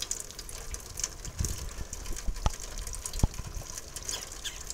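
Rain falling, with wind rumbling on the microphone. Two short knocks about two and a half and three seconds in.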